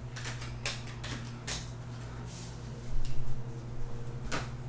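Football trading cards and a foil pack wrapper being handled: a few short scattered rustles and taps, with a louder rustle about three seconds in, over a low steady hum.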